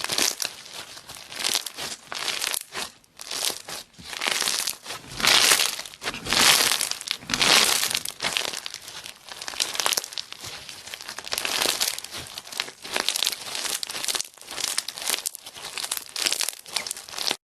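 Slime being squeezed and worked by hand, giving a dense crackling that comes in irregular waves, loudest around the middle, and cuts off abruptly near the end.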